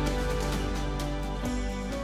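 Instrumental background music: slow, sustained notes with a soft, light beat.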